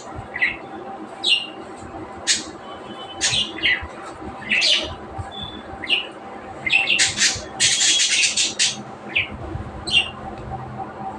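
Budgerigars chirping and squawking in short, sharp calls, with a dense run of calls about seven to eight and a half seconds in.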